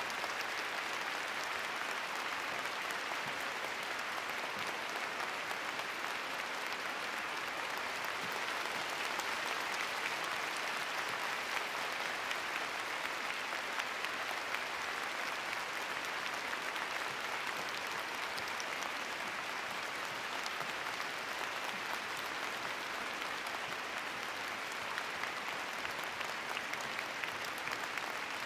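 Large arena crowd applauding steadily: a sustained ovation at the end of a figure skating performance.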